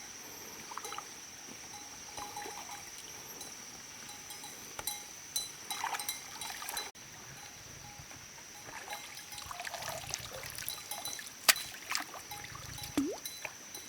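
Water trickling and splashing, with scattered light knocks and clicks over a steady high-pitched tone.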